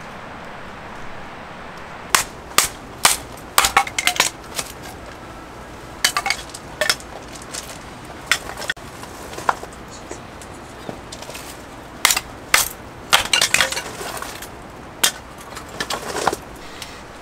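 Irregular clinks and knocks of small hard items being handled, in quick clusters of strikes, over a steady soft hiss.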